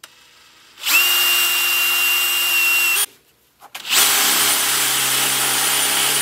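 Cordless drill boring a hole through a steel bracket plate held in a vise. It runs steadily with a held whine for about two seconds, stops for about a second, then starts again and keeps running.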